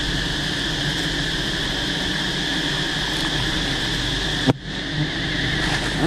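Steady high insect chirring, crickets or cicadas, over a low rumble. It breaks off sharply for a moment about four and a half seconds in.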